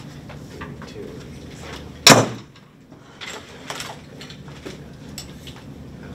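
Quiet meeting-room background with small clicks and rustles, broken about two seconds in by a single loud bang that dies away quickly.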